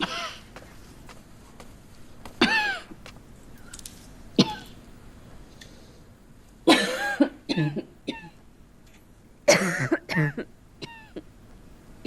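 A woman coughing in repeated harsh fits a few seconds apart, some coughs coming in quick clusters with a strained, throaty edge: a sick, hacking cough that brings up blood.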